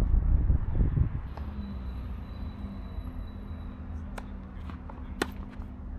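Low rumble for the first second, then a steady low hum with a few short sharp taps from play on a tennis court, the loudest about five seconds in.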